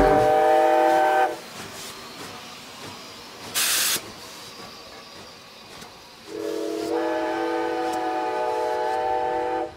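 Train whistle sounding a steady chord of several notes: a blast of about a second at the start, a short burst of hiss near the middle, then a long blast of about three and a half seconds that cuts off suddenly near the end.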